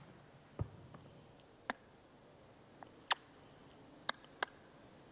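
A few short, sharp clicks at uneven intervals, about six in all, two pairs of them close together; the first comes with a dull thump, about half a second in.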